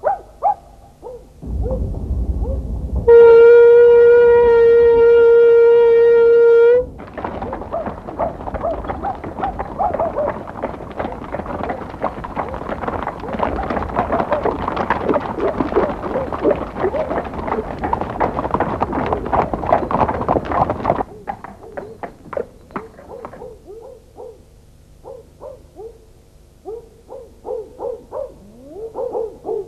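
Dubbed-in sound effects: a low rumble, then a steam train whistle blowing one long steady blast of nearly four seconds. A crowd's hubbub follows for about fourteen seconds and cuts off suddenly, leaving scattered short calls.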